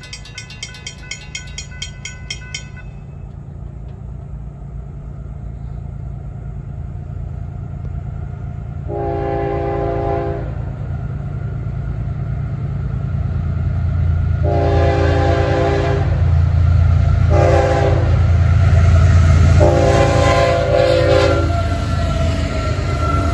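Florida East Coast Railway diesel freight approaching a grade crossing. A crossing bell rings rapidly for the first couple of seconds. Then the locomotives' low rumble grows steadily louder while the lead engine blows its multi-note air horn in the standard crossing signal: long, long, short, long. The locomotive is at its loudest as it reaches the crossing near the end.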